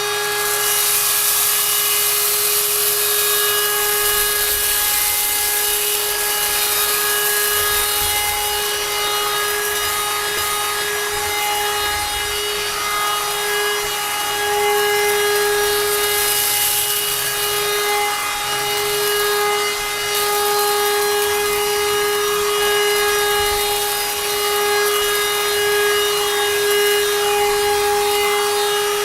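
YD610 cordless handheld car vacuum cleaner running steadily, a high motor whine over a rush of air, as it sucks up spilled rice from the floor.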